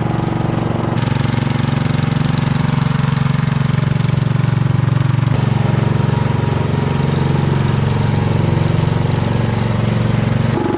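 A vehicle engine running steadily, a loud even hum at one pitch. The hiss above it changes abruptly about a second in and again about five seconds in.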